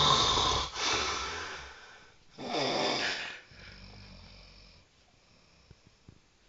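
Heavy snoring: two loud snores about two and a half seconds apart, each trailing off into a quieter breath, then a quiet pause.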